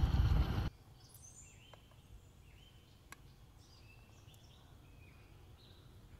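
A loud low rushing rumble cuts off suddenly under a second in, leaving quiet open-air background with scattered short bird chirps and a few faint clicks.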